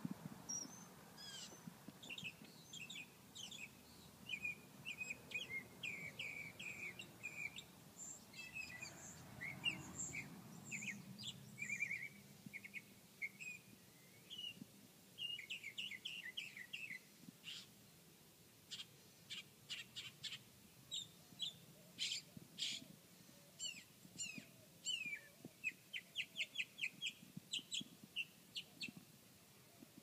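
A small songbird singing a long, varied song of quick chirps and twitters. In the second half it turns to runs of short, sharp notes repeated several times a second.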